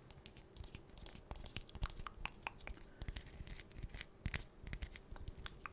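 Fingernails tapping and scratching on a vinyl Funko Pop figure held close to the microphone, an irregular run of light clicks and taps, several a second.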